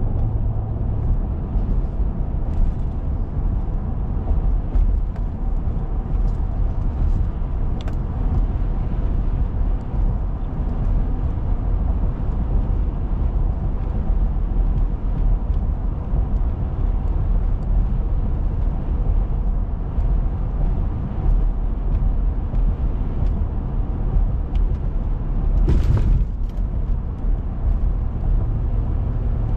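Steady road and engine noise of a car driving, heard from inside the cabin, mostly a low rumble. Near the end there is a brief louder rush of noise.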